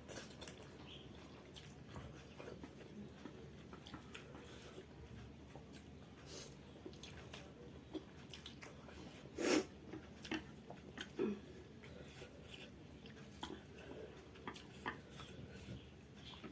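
Close-miked chewing of spicy instant noodles: soft wet mouth sounds and small clicks, with a louder mouth noise about nine and a half seconds in and another near eleven seconds.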